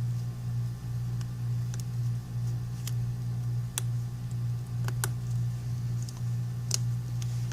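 A steady low hum with a handful of short, sharp clicks and taps, spread out a second or so apart, as a small phone is handled and tried out on a workbench.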